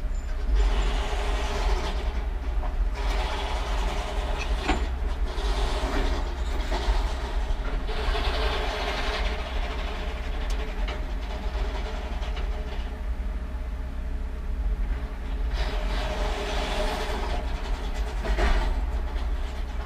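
Log loader's diesel engine running at a logging landing: a steady low rumble, with louder stretches of engine noise lasting a second or two every few seconds as the machine swings its boom. A sharp knock comes about five seconds in and again near the end.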